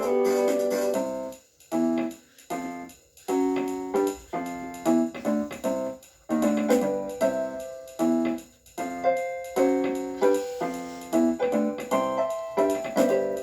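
Background piano music: a melody of separate notes, each struck and fading away.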